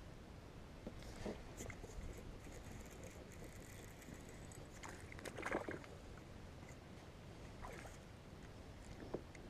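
Faint small splashes and knocks around a kayak on the water, the loudest a short splashy burst about halfway through, over a low steady rumble of wind on the microphone.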